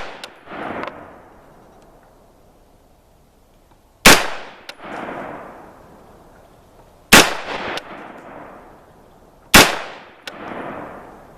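AR-15 rifle firing three single shots, about three and then two and a half seconds apart. Each crack is followed by a rolling echo that dies away.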